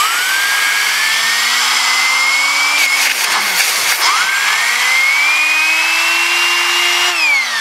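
Compressed air hissing from an air blow gun into a small 3D-printed 60 mm air turbine, spinning it up freely with its generator motor disconnected. The turbine's whine rises in pitch over about three seconds and dips briefly. It then climbs higher again from about four seconds in and falls near the end as it spins down.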